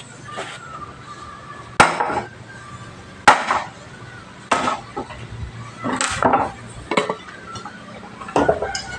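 Axe chopping into wood: about six sharp, hard chops, roughly one every second and a half.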